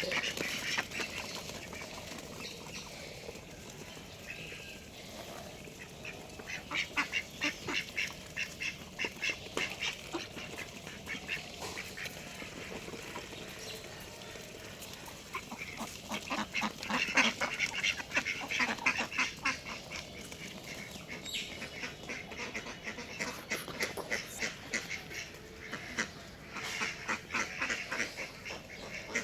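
Birds calling in several bouts of rapid, repeated short notes, with a quieter background between the bouts.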